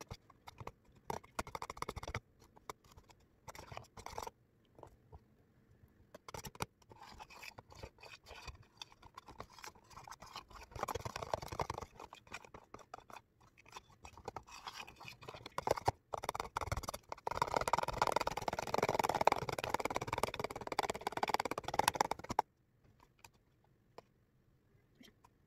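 Spatula scraping and stirring thick sandwich spread in a plastic tub: scattered short scrapes and clicks, then a longer, louder stretch of steady scraping about two-thirds of the way through that stops suddenly.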